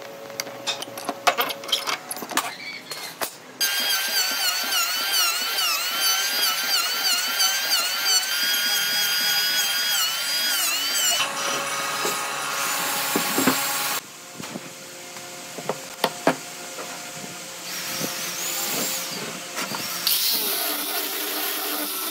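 Handheld electric power tools working wood. Clicks and knocks come first, then a motor whine that wavers up and down in pitch as it bites for several seconds, then more knocks. Near the end a sanding disc on an angle grinder runs over the wood.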